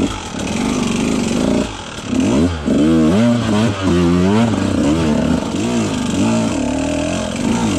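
2018 KTM 150 XC-W two-stroke dirt bike engine, revved up and down several times in quick succession, then running at steadier revs with a higher pitch near the end.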